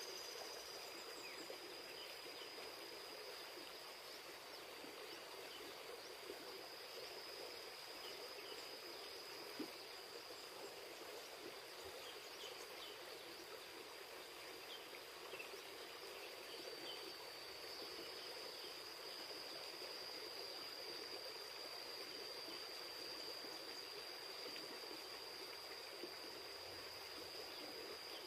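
River water flowing steadily, faint and even. A thin, steady high-pitched tone runs over it, with one small tap near the middle.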